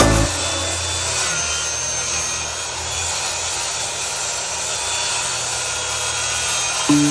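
Corded power tool cutting steadily into plywood wall sheathing, a continuous grinding, sawing noise. Background music stops just after the start and returns near the end.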